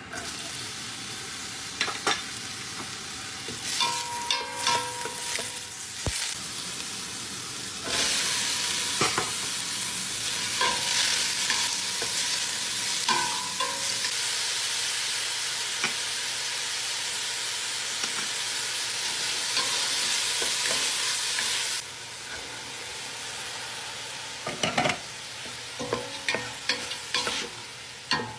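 Chopped onion and meat frying in ghee in a steel pot, a steady sizzle that grows louder about eight seconds in and drops back a little past twenty seconds. A spoon stirring scrapes and knocks against the pot again and again, some knocks ringing briefly.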